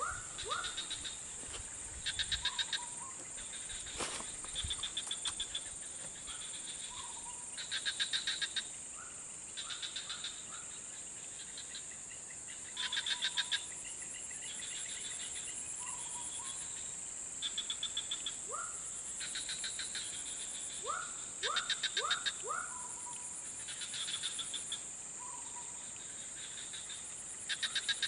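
Swamp insects and frogs calling: a steady high-pitched insect drone, with loud pulsed trills repeating every two seconds or so and short rising chirps scattered among them. A single sharp click about four seconds in.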